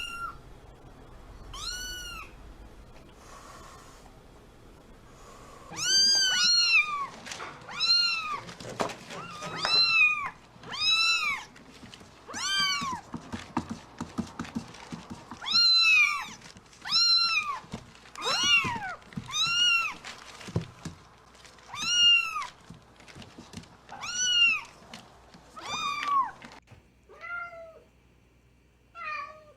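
Kitten meowing over and over, high-pitched calls that each rise and fall in pitch. A couple come early, then they follow about once a second from about six seconds in, with smaller, lower calls near the end.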